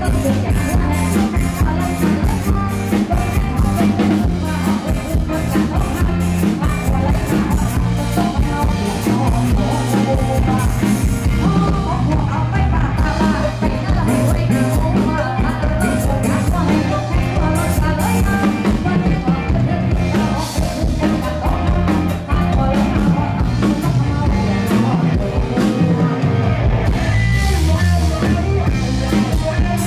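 Live band playing a song: a woman singing lead into a microphone over electric guitar and drum kit.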